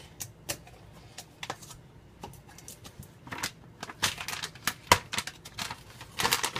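Kitchen items being handled off to the side: irregular clicks, taps and light rustling in short clusters, with the sharpest click about five seconds in and a busier flurry near the end.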